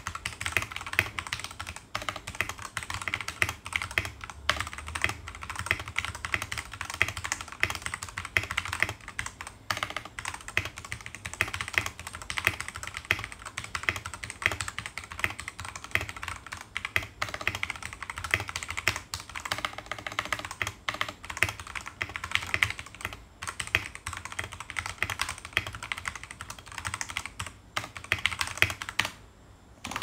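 Fast, continuous typing on a Keycool KC84 mechanical keyboard with Huano dustproof red linear switches and PBT OEM-profile keycaps: a dense clatter of keystrokes, with a couple of brief pauses and a short lull near the end.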